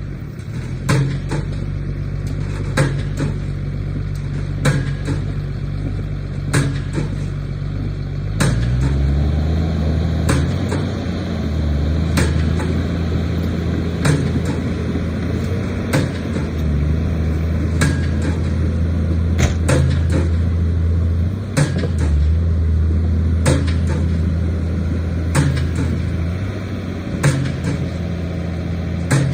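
Hyundai Robex 290LC-9 excavator's diesel engine running at low revs, then stepping up to a higher, steady speed about a third of the way in. Sharp clicks or knocks recur every one to two seconds over the engine.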